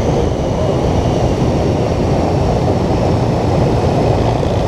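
P-51 Mustang's piston engine running at taxi power, a steady low rumble with a faint high whine that slowly falls in pitch.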